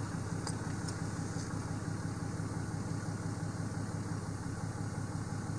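2016 Dodge Ram pickup's engine idling steadily as a low, even hum, heard from inside the cab.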